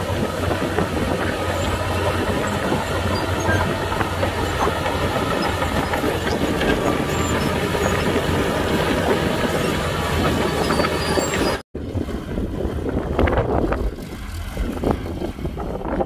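Komatsu bulldozer working: its diesel engine runs steadily with the continuous clatter of steel tracks. The sound cuts off abruptly about eleven and a half seconds in, then gives way to wind noise on the microphone with scattered knocks and machine noise.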